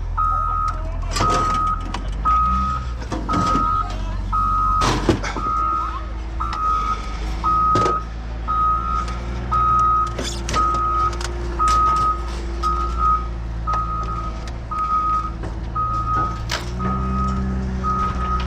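A heavy vehicle's back-up alarm beeping about once a second over a diesel engine running, with scattered metallic clanks and knocks. The engine note rises a little near the end.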